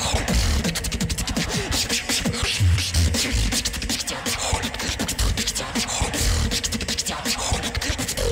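Beatboxing into a stage microphone during a battle round: a fast run of clicking snare and hi-hat sounds over deep bass kicks.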